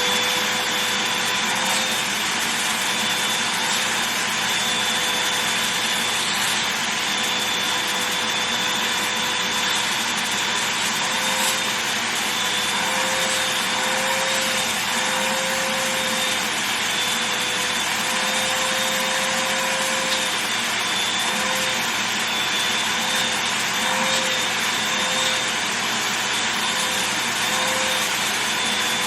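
Vacuum cleaner running steadily over a fabric duffel bag, a constant rushing hiss with a high motor whine; from about the middle on, the whine wavers briefly again and again as the nozzle moves over the bag.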